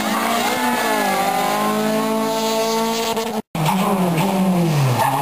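Rally car engine running hard at high revs, its pitch fairly steady with small rises and falls. After a brief dropout about three and a half seconds in, another rally car's engine is heard, its pitch falling and rising in quick sweeps as it comes off and back onto the throttle.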